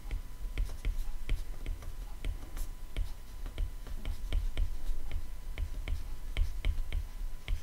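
Stylus tip tapping and scratching on an iPad's glass screen during handwriting: an irregular run of small sharp clicks, about three or four a second, with soft knocks beneath them.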